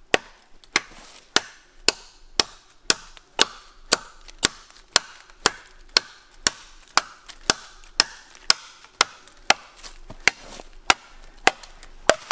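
Orford Eban parang chopping through a green felled log of about 3½-inch diameter, with steady blows of the blade biting into the wood at about two a second.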